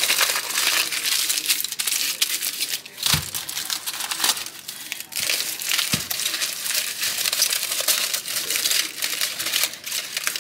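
Aluminium foil crinkling and crumpling as it is folded and pressed around a potato by hand. Two dull knocks come about three and six seconds in.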